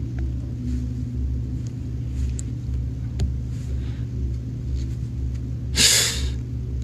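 A steady low hum, with a short loud burst of hiss about six seconds in.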